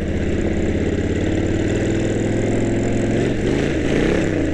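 Harley-Davidson V-twin engine running steadily at low revs, heard through a helmet-mounted microphone; near the end its pitch briefly rises and falls back as the throttle changes.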